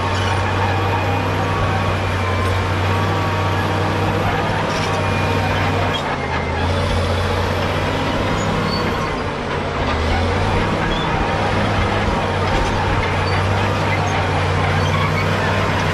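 Caterpillar D7G bulldozer's six-cylinder diesel engine running steadily under work, its note dipping and shifting briefly twice, about six and ten seconds in, as the load changes.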